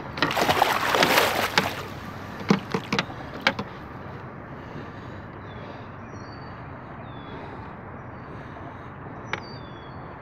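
Water splashing and sloshing as a large musky stirs in a landing net at the side of a boat, loudest in the first couple of seconds, followed by a few sharp knocks and then quieter water sounds.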